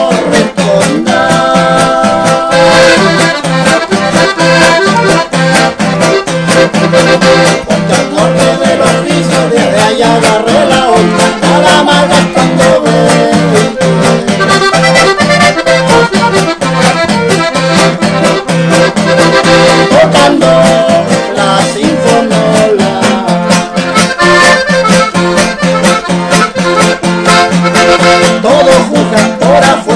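Piano accordion playing a ranchera tune in held notes over a strummed acoustic guitar.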